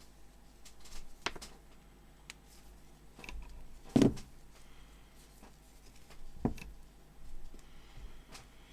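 A few scattered knocks and clicks of equipment being picked up and set down on a workbench, the loudest about four seconds in.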